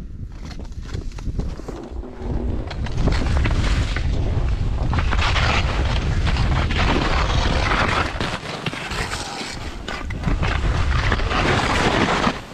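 Skis sliding and turning through deep powder snow, with wind buffeting the helmet camera's microphone in a heavy rumble. It grows louder about three seconds in, eases off for a couple of seconds past the middle, then rises again.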